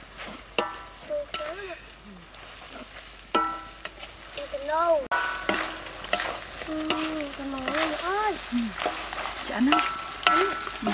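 Spatula scraping and knocking against a wok while shrimp and egg are stir-fried, with short squeaky scrapes that rise and fall in pitch over the sizzle of the frying.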